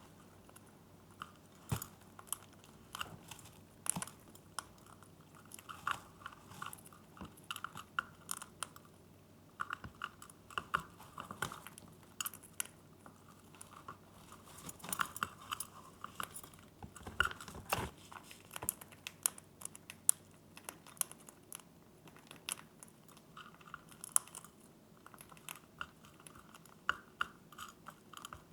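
Grey-breasted conures (small parrots) crunching treats with their beaks: irregular small crunches and clicks throughout.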